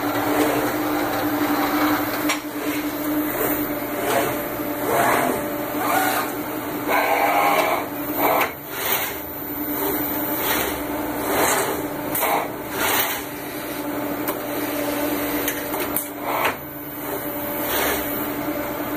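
DEK Horizon 265 solder-paste stencil printer running an automatic print cycle: a steady hum under repeated clicks, knocks and short noisy bursts from its moving mechanism.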